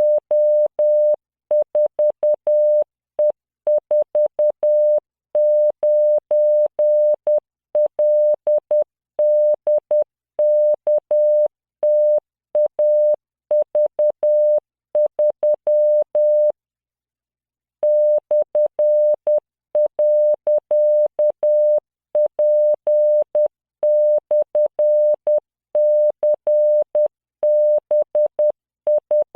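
Computer-generated Morse code at 10 words per minute: a single 600 Hz tone keyed on and off in dots and dashes, spelling random letters, numbers and punctuation. It pauses for just over a second about halfway through.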